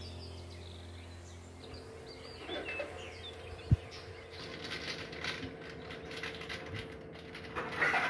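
A few faint bird chirps in the first half, and one short soft knock a little before the middle. Then comes a soft, scratchy rustling as a moist dal-and-onion filling is stirred with a spoon and worked by hand in a steel plate.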